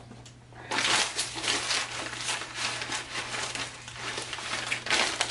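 Packaging being handled and pulled open, crinkling and rustling in a quick run of sharp crackles that starts about a second in, with a louder flurry near the end.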